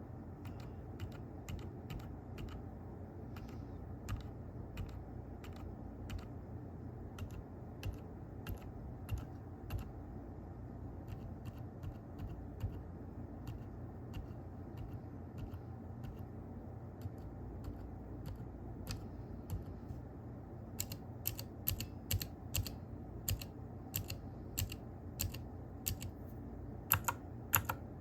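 Mechanical keyboard switches pressed one key at a time: separate keystroke clicks, about one to two a second. About two-thirds of the way through, the strokes turn sharper and louder, the difference between a quieter switch and a noisier one.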